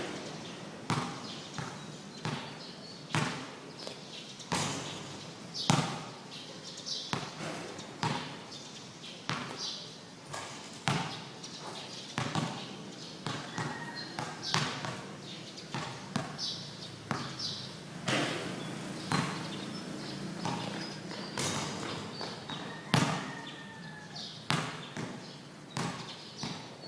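Basketball bouncing on a hard court during a game: repeated sharp thuds at an uneven pace, with echo and occasional brief shouts.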